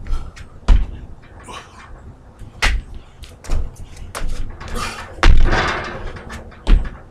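Feet and hands landing on wooden deck boards during frog-jump burpees: a run of heavy thuds, about six, spaced one to two seconds apart, the loudest about five seconds in, followed by a longer scuffing noise.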